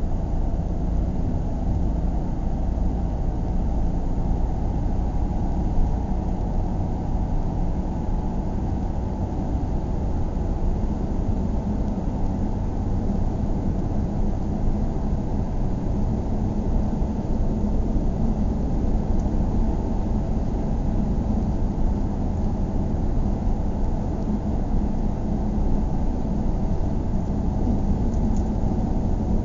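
Steady low rumble of a car driving along a paved road: engine and tyre noise with no sudden events.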